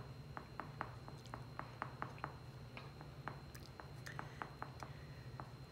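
A black crayon drawing quick short dashes on paper makes faint, regular scratchy taps, about four or five strokes a second, over a low room hum.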